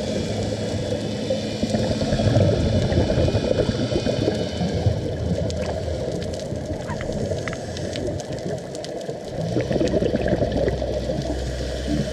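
Underwater bubbling and gurgling from a scuba diver's breathing at a safety stop, heard muffled through the camera housing; it swells and ebbs, loudest a few seconds in, with faint crackling clicks later.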